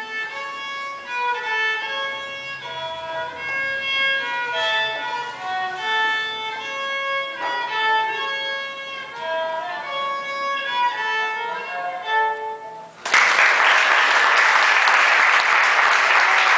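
Solo fiddle played by a young beginner: a tune of separate bowed notes that ends about thirteen seconds in. Louder applause breaks out at once and carries on to the end.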